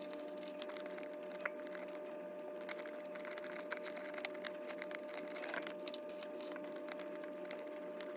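Plastic photocard binder sleeves and cards being handled: faint crinkling and scattered light clicks over a steady hum.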